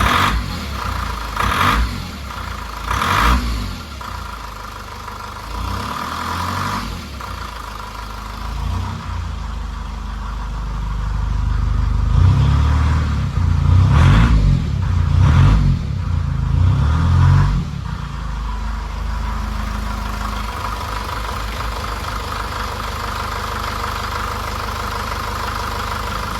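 Car engine revved in several quick blips of the throttle, then a longer, louder run of revs in the middle, before settling back to a steady idle for the last several seconds.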